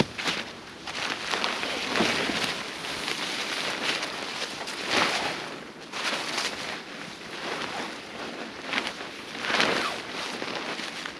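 Gusty wind rising and falling in swells, with a large nylon tarp rustling and flapping in it as it is being pitched.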